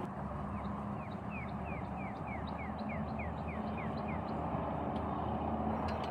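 A bird singing a quick run of about a dozen short falling notes, about three a second, that stops about four seconds in, over a low steady hum.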